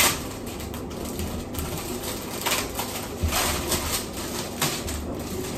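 Crinkling and rustling of a tablecloth's packaging as it is unwrapped and the folded cloth pulled out, in irregular bursts, with a single knock right at the start.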